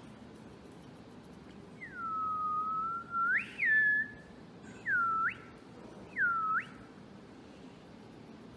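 A person whistling: one long note that dips and then sweeps up at its end, followed by a quick up-and-down whistle and two short swoops that drop and then rise sharply.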